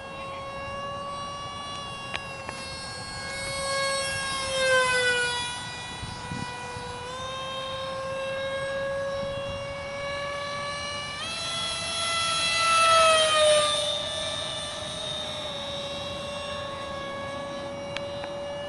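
Electric ducted-fan whine of a 50 mm EDF radio-control F-22 Raptor jet in flight, its pitch stepping up and down with the throttle. It swells and then drops in pitch as the jet passes close, about four seconds in and again about twelve seconds in.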